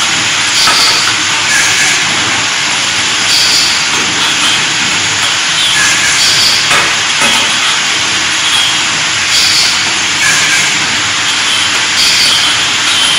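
Laser welding machine running with a loud, steady hiss, with short higher-pitched flares every second or two.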